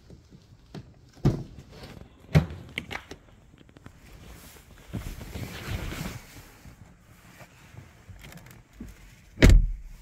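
Ford Mondeo/Fusion driver's door opened by its handle with two sharp latch clicks, then rustling as someone gets into the seat, then the door shut with a heavy thump near the end.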